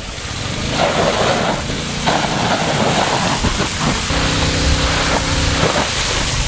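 Strong jet of water from a hose-fed water turret, hissing steadily as it sprays. A low droning tone joins about four seconds in and stops shortly before the end.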